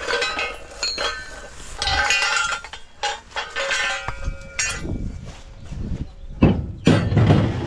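Steel scaffold base plates clinking and knocking against each other as they are handled, the metal ringing briefly at each knock. In the second half several heavier, dull thuds take over.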